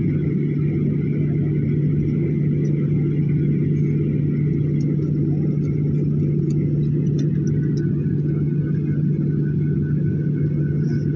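Jet airliner's engines heard from inside the cabin while taxiing: a steady low drone with a constant hum. A faint high whine runs over it and drops a little in pitch about eight seconds in.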